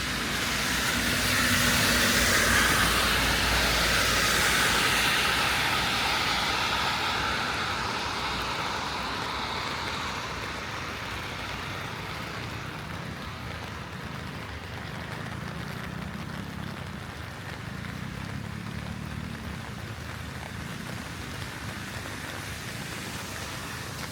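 Heavy rain falling steadily, with a car's tyres hissing past on the wet street: it swells to its loudest a few seconds in and fades away over about ten seconds, leaving the even rain.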